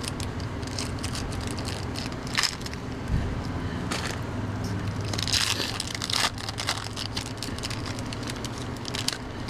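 Stiff trading cards being flipped through and slid against each other by hand: a run of papery flicks, scrapes and crackles over a steady low hum.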